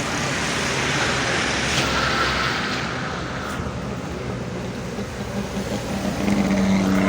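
Road traffic passing, with the steady hum of a nearby vehicle's engine coming in about six seconds in.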